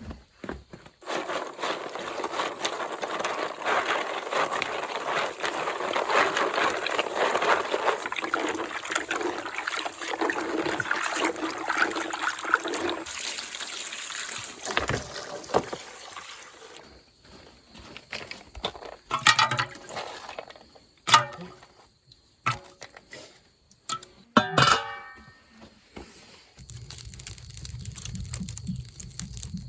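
Water pouring and splashing for about twelve seconds, then a few scattered knocks and clatters.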